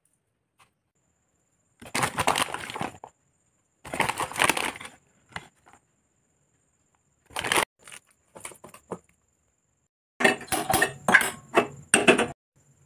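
Handling noises from adding salt and gram flour to a steel mixing bowl: several bursts of scraping and rustling, with some sharp clinks near the end.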